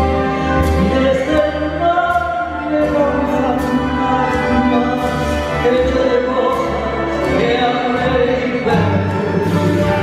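A woman singing a tango with an orchestra of violins and woodwinds behind her.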